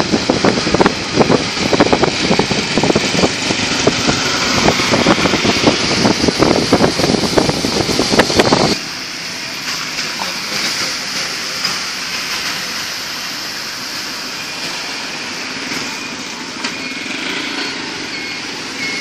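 Wind buffeting the microphone on a moving vehicle for the first eight or nine seconds, then an abrupt switch to a quieter, steady hiss of traffic on a wet road, with engines running.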